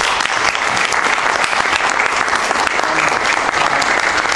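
An audience applauding: many people clapping together in a steady, loud burst that starts at once.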